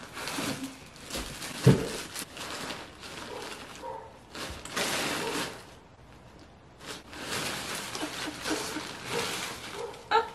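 Rustling and crinkling of packaging and the folded nylon fabric of a Christmas inflatable being pulled from its cardboard box, coming in bursts, with a sharp knock about two seconds in.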